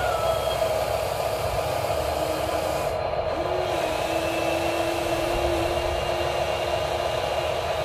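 Steady electric whirring of a Huina RC excavator's motors as the boom and bucket dig into sand, with a steadier motor tone coming in about three seconds in and holding for a few seconds.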